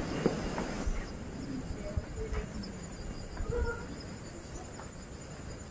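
Steady high-pitched insect trill, pulsing slightly, with a few faint short bird chirps and some soft low thumps in the first couple of seconds.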